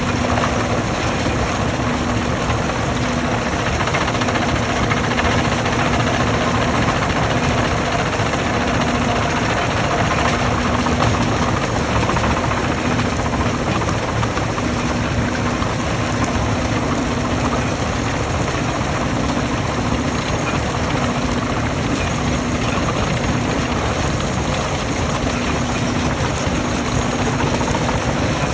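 Stone crusher machinery running: a loud, steady mechanical din with a low hum that drops out and returns now and then.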